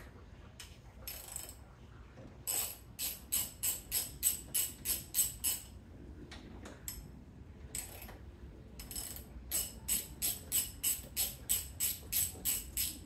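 Socket ratchet wrench turning a bolt, its pawl clicking in quick even strokes, about three a second, in two runs: one starting a couple of seconds in, the other starting about nine seconds in.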